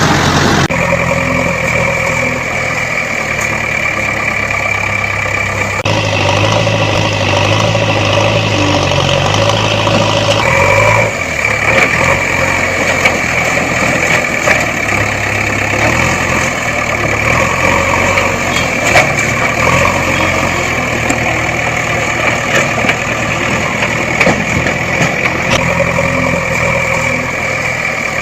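Farm machinery engines running steadily with a constant high whine over the engine note. The sound changes abruptly about a second in, again around six seconds and around ten seconds, as the footage cuts between machines.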